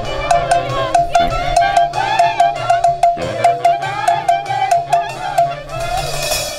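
Andean folk orquesta playing a lively tune: a quick run of repeated high melody notes over a steady bass, with percussion.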